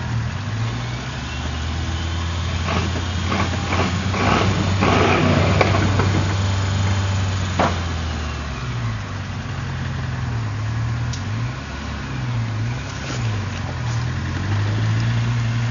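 Small lifted off-road 4x4's engine held at high revs while its tyres spin in mud, with a cluster of sharp cracking noises about three to six seconds in and one sharp knock about eight seconds in. Later the revs rise and fall several times as the throttle is worked.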